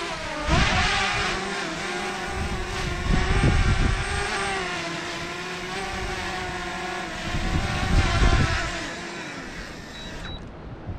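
Quadcopter drone's propellers spinning up and lifting off: a steady, multi-toned motor whine that rises about half a second in, with wind gusting on the microphone. The whine drops away sharply about ten seconds in.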